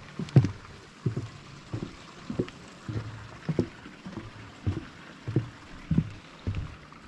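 Heavy rhythmic breathing: short, low breaths about one every 0.6 seconds, without a break.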